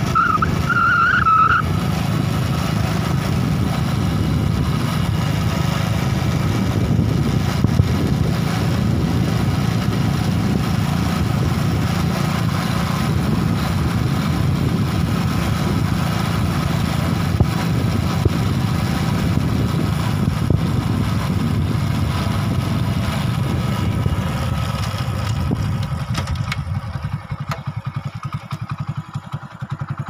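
Motor vehicle, likely a motorcycle, running steadily while on the move, with road and wind noise. From about 25 seconds in it eases off and gets quieter as the vehicle slows.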